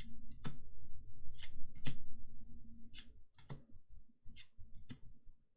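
Magic: The Gathering trading cards being handled and flicked through, making sharp papery clicks that come in pairs about half a second apart, four pairs in all.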